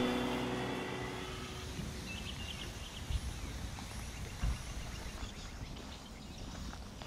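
A vehicle engine fading away, giving way to quiet outdoor ambience with a few faint bird chirps about two seconds in and a couple of low thumps.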